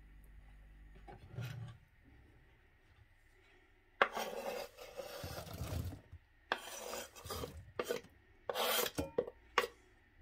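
Kitchen knife scraping and cutting on a wooden cutting board, in three stretches of strokes starting about four seconds in.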